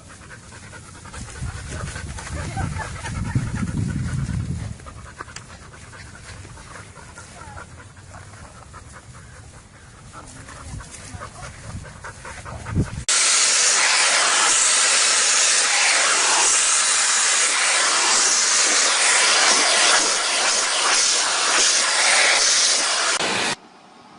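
Quieter low rumbling with small clicks, then a loud, steady hiss that starts suddenly about halfway through and cuts off abruptly near the end.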